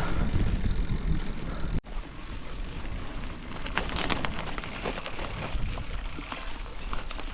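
Bicycle rolling along a muddy, wet forest track: steady tyre noise with scattered small clicks and crackles, broken by a brief gap about two seconds in.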